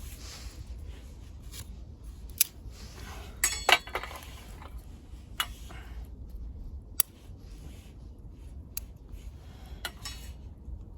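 Wood crackling and popping as it burns in a small camping wood stove: irregular sharp snaps, a quick cluster of them about a third of the way in, over a steady low rumble.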